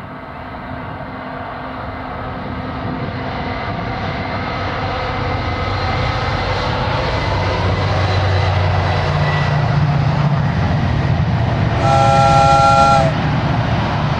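Diesel-hauled Freightliner container train approaching, its engine and wheel rumble building steadily. Near the end the locomotive sounds one horn blast of several tones together, lasting about a second.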